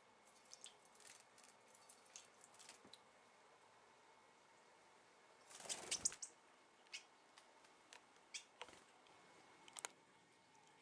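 Faint ticks and small splashes from a young blue tit bathing in a shallow metal water bowl. About six seconds in comes a short, louder rush of wings and splashing as it leaves the bowl.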